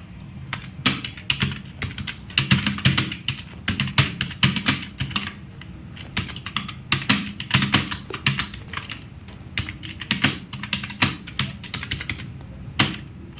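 Fast typing on a computer keyboard: quick runs of key clicks in bursts, broken by short pauses.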